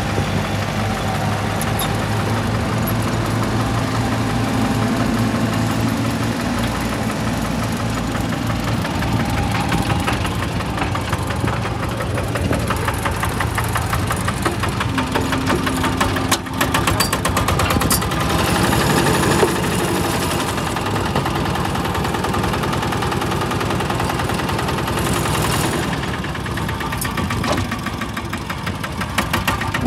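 Diesel engines of a mini dumper and a 5-tonne mini excavator running close by, going steadily at first and then varying as the machines work.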